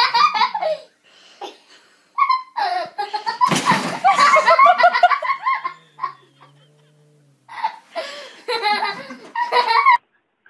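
People laughing hard in several loud bursts, with short pauses between them.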